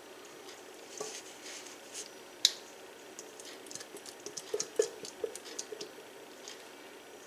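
Silicone spatula scraping a thick, creamy broccoli-and-cheese mixture out of a stainless steel mixing bowl into a glass baking dish. Soft scrapes and squishes with light clinks, one sharp clink about two and a half seconds in and a run of small clicks a little later.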